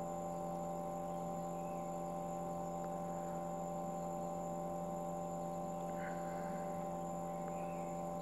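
Homemade R290 glycol chiller running, a steady hum of several fixed tones, as it cools a tub of antifreeze below zero.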